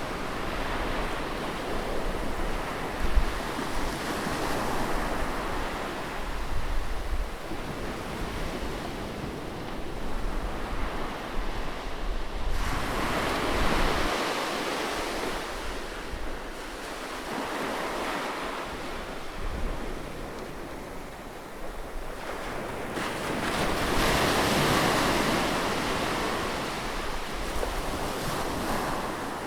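Sea waves breaking and washing on a shore, swelling and ebbing every few seconds, with wind rumbling on the microphone.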